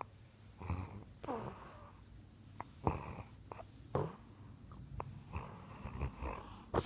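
Bulldog breathing heavily, a noisy breath every second or so, with the loudest one near the end. Its noisy breathing is typical of a short-nosed breed.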